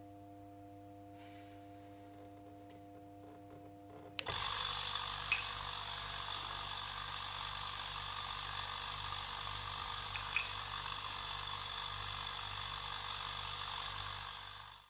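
A sharp click, then a refrigerator compressor motor starts about four seconds in and runs steadily with a hum under a strong hiss, fading out near the end.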